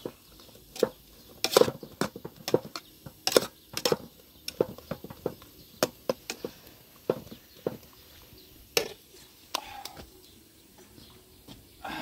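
A run of sharp knocks and taps, irregular at about one or two a second, growing sparser after about nine seconds.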